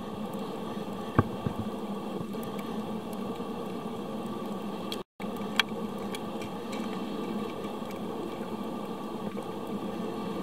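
Muffled underwater noise heard through a camera's underwater housing: a steady watery hiss with a few sharp clicks. The sound drops out for a moment about halfway.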